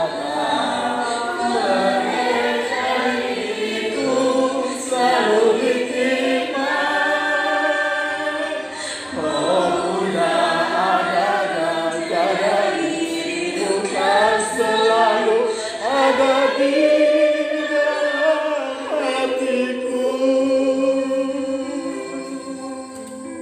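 A group of voices singing a slow song together, with long held notes, fading near the end.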